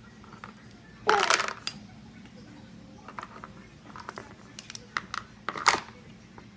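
A plastic baby spoon tapping and scraping in a ceramic bowl of rice cereal, with several sharp clinks in the second half. There is a short, louder sound about a second in.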